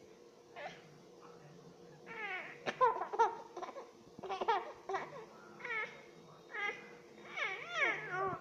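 A baby babbling in a string of short, high-pitched coos and squeals that bend up and down in pitch, about one every second.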